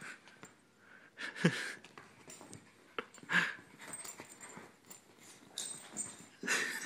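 A small dog's breathy play noises as it goes after a cat, in three short bursts: about a second in, about three seconds in, and near the end.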